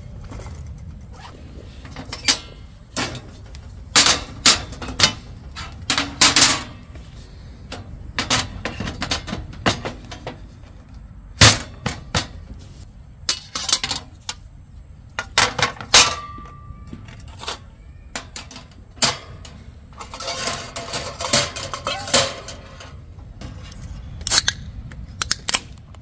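Black folding metal camp table panels and other gear being set down and fitted into place: a run of irregular sharp knocks, clacks and clinks, with a denser clatter about twenty seconds in.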